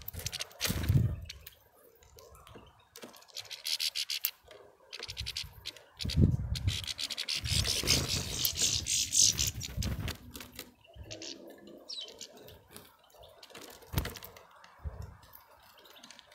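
Finches scrabbling and pecking in a pile of sunflower seeds close to the microphone: seeds rustling and clicking, with low thumps, and a brief rush of wing flutter about eight seconds in.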